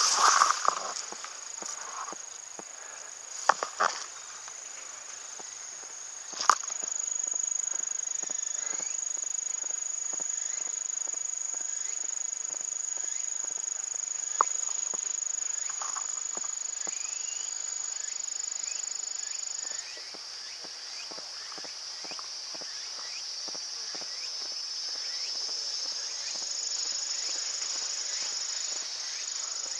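Insects calling in a steady high-pitched chorus, with one shrill tone joining about six seconds in and stopping about twenty seconds in. Under it are soft, scattered footsteps and rustles of leaves and grass as someone creeps through undergrowth.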